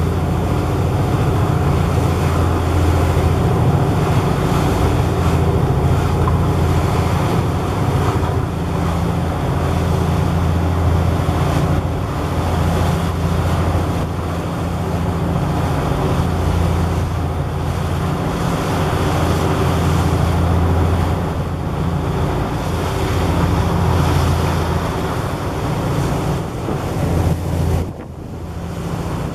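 A boat's engine running with a steady low drone, under wind buffeting the microphone and the noise of water, as on a ferry crossing. The level dips briefly near the end.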